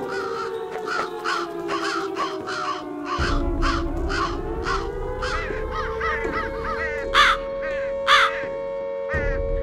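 A rapid series of harsh, crow-like cawing calls, two to three a second with two louder ones near the end, over a steady droning tone that sags in pitch and then climbs back. A low rumble comes in about three seconds in and stops shortly before the end.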